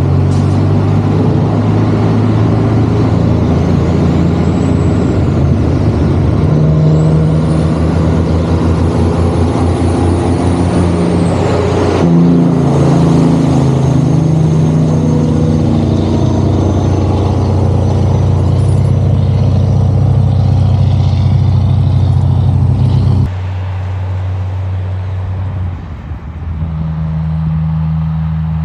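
Kenworth C500 truck's heavy diesel engine running hard under load, with a high whistle that rises and falls twice. The sound changes abruptly twice, and for the last few seconds the engine runs more quietly.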